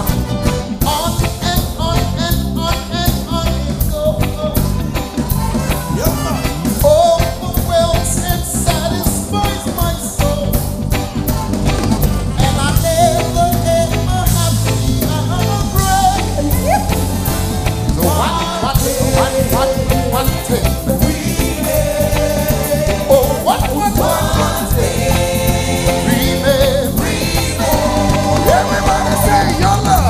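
Live gospel worship band playing a reggae-style praise song, with a male lead singer and female backing vocalists singing over keyboard, bass and drums.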